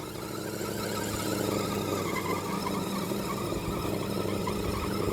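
Axial SCX10 RC crawler's electric motor and geared drivetrain whining under load as it climbs a steep, loose slope, the whine wavering in pitch with throttle and traction.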